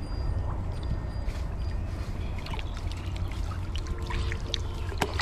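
Shallow pond water trickling and sloshing around a plastic bottle trap as it is handled, with small scattered drips over a low steady rumble.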